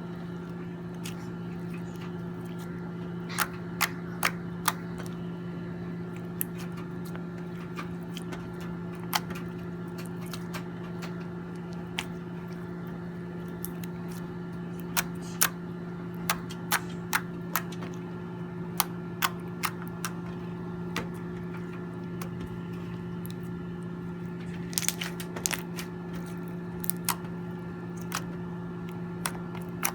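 Slime mixed with pearl beads being pressed and played with, giving scattered sharp clicks and pops that come in clusters, over a steady low hum.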